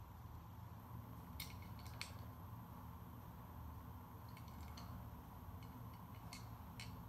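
Faint handling noise: a few small clicks and ticks as a die-cast toy car is turned over in the fingers, over a low steady room hum.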